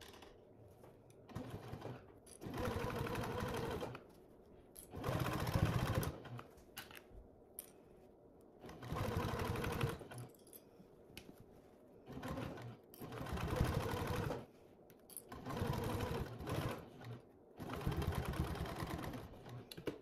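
Janome HD9 straight-stitch sewing machine stitching in about six short runs of one to two seconds each, stopping and starting between runs, while it bastes a seam through layers of quilting cotton.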